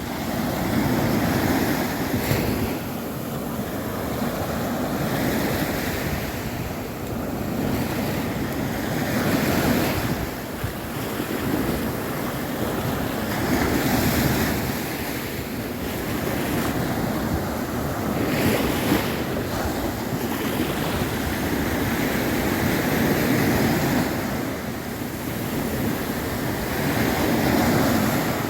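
Caribbean surf breaking on a beach in rough sea, the waves swelling and washing in every few seconds, with wind buffeting the microphone.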